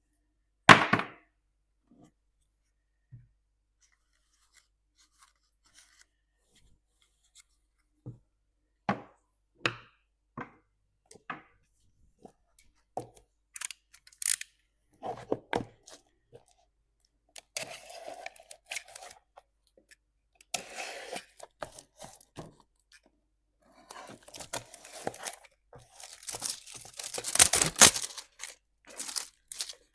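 A series of sharp clicks and knocks, then longer spells of scraping and rustling, loudest near the end: objects being handled by hand.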